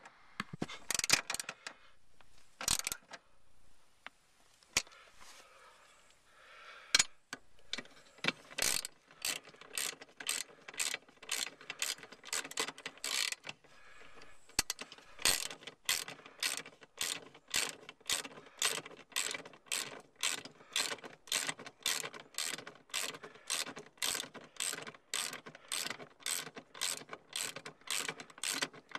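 Ratchet wrench clicking as the seat-bracket bolts are tightened: a few scattered clicks at first, then from about eight seconds in a steady run of about two clicks a second.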